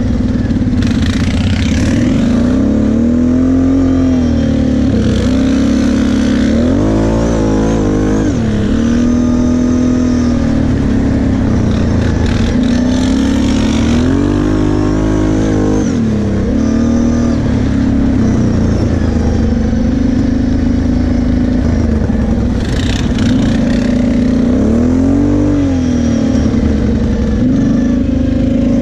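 Kawasaki KFX sport quad's engine running under way, close to the microphone, its pitch rising and falling several times as the throttle is opened and eased off.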